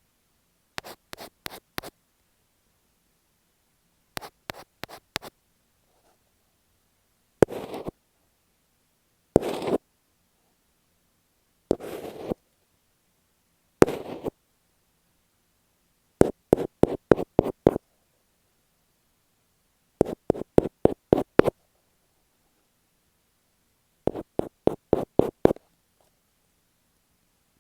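Taps and scratches on masking tape stuck over an earphone microphone, picked up close. Short runs of quick taps come at the start and again in the second half; in between come four separate short scratching strokes.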